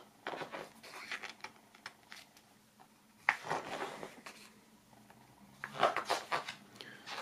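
Large paper artbook's pages being turned by hand: paper rustling and sliding, with a sharp flick of a page about three seconds in and another page turn around six seconds in.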